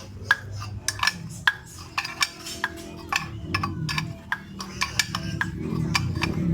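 Irregular sharp metallic clicks and clinks, about two or three a second, from steel tools working a bearing puller to draw the shaft out of a Honda Vario 125's CVT pulley housing. Under them a low hum grows louder in the second half.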